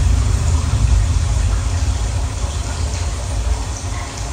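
A film soundtrack played loud through a home-theater system, a Marantz SR8015 receiver driving a Tonewinner AD-8300 power amplifier: a deep, heavy rumble with a steady hiss above it, as from a fire or explosion effect.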